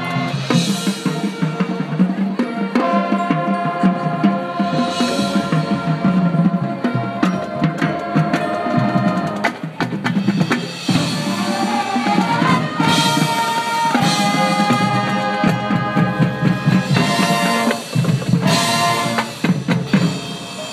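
Marching band playing a field show: loud sustained brass and saxophone chords over a drum line, with front-ensemble mallet percussion and drums.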